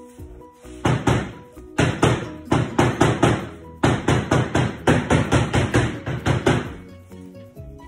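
A container of top coat being shaken hard, making rapid rhythmic thuds about four or five times a second in two runs with a short break between them, over soft background music.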